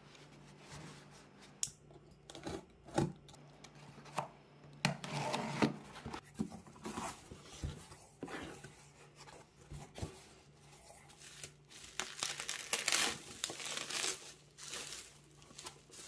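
Packing tape peeled and torn off a cardboard box and the flaps opened, then a bubble-wrap package handled and unwrapped, crinkling and rustling, with scattered clicks and scrapes.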